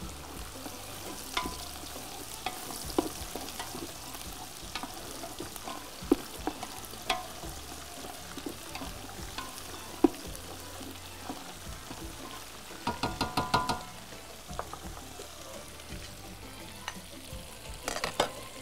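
Hamour pieces frying in oil in a frying pan, a steady sizzle, with occasional utensil taps and scrapes against the pan and cooking pot. About 13 seconds in there is a quick run of metallic clinks.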